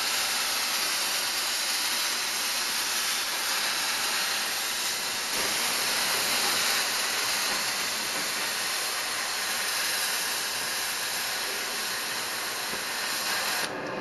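Oxy-fuel cutting torch with the cutting-oxygen trigger held, its jet hissing steadily as it burns through 1/8-inch steel plate. The hiss cuts off suddenly near the end.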